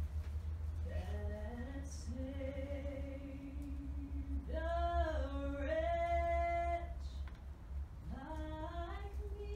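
A woman's voice singing an unaccompanied Maori chant in three long held phrases, each sliding up into its note. A low steady rumble runs underneath.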